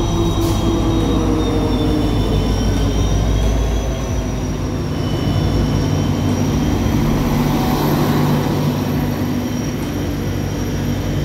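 Indian Railways diesel locomotive pulling a passenger train in along the platform: a steady low engine drone over the rumble of the coaches rolling past, with a thin high squeal above.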